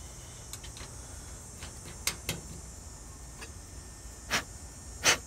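Short puffs of R-410a gas hissing out as the gauge-manifold hoses are purged to blow moisture out: several brief bursts, the two loudest near the end.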